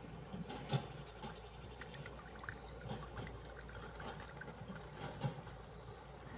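Stream water splashing and trickling around a person wading in it, with many small irregular splashes and drips and one sharper splash under a second in.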